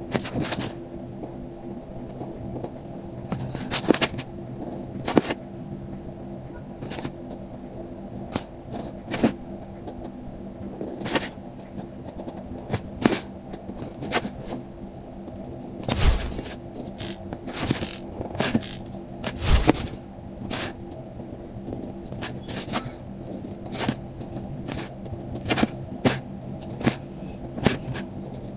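Paper and card being handled and worked by hand while making cards: irregular taps, scrapes and crackles, with two heavier thuds about 16 and 19.5 seconds in. A steady low hum runs underneath.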